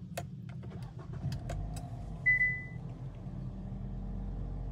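2020 Kia Sportage's four-cylinder engine started by push button: several clicks, then the engine catches and settles into a steady idle near 1,000 rpm. About two seconds in, a short high beep of the dashboard warning chime, the loudest sound.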